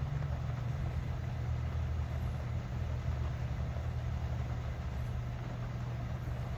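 Steady low mechanical hum with no change throughout, like a running engine or motor.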